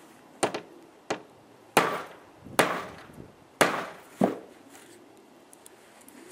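Ball-peen hammer striking a snap-setting punch to set a snap fastener through jacket fabric on a wooden board: about six sharp blows in under four seconds, the middle three the hardest.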